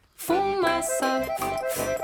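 Background music for children starting up after a brief silence: a bouncy melody over a steady beat.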